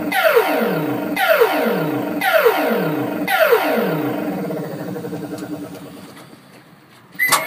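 A coin-operated boxing arcade machine's electronic sound effect: a falling tone repeating about once a second, dying away over the last few seconds. Near the end there is a sudden loud knock.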